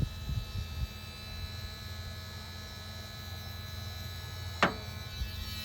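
Ford Mustang's 331 stroker V8, with long-tube headers and an X-pipe and no mufflers, idling steadily after a new PCV valve was fitted and a vacuum leak sealed. There is one brief sharp sound about four and a half seconds in.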